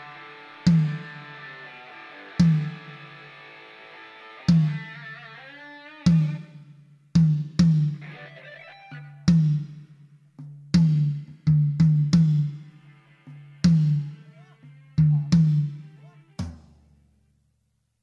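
Drum kit sound check through a stage PA: single drum strokes, about one a second at uneven spacing, each a sharp crack with a deep boom that rings on. Near the end it stops after a last hit.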